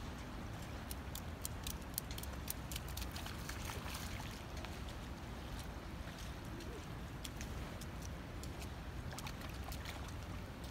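Small wet splashes and ticks of children's feet in a shallow rain puddle, frequent in the first few seconds and sparser later, over a steady low outdoor rumble.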